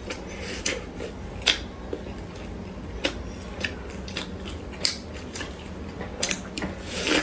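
Crisp crust of a pan-fried bun crackling in irregular sharp snaps as it is squeezed and pulled apart by hand, then bitten into near the end.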